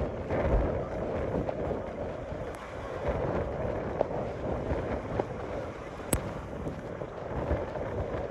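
Rough hurricane surf washing and breaking over a pier's seawall, with strong wind buffeting the microphone in a steady low rush.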